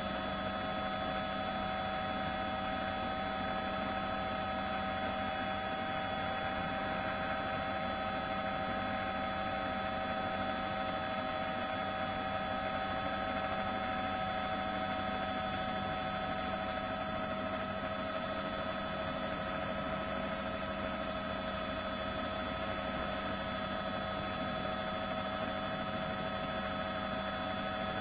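Helicopter turbine engine: a steady, unchanging hum and hiss with several constant whining tones.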